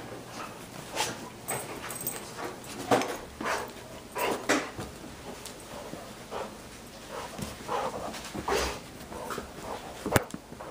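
A golden retriever and a young Rhodesian Ridgeback puppy play-fighting, with short dog vocalisations at irregular intervals and scuffling on a cushioned dog bed. A sharp knock comes about ten seconds in.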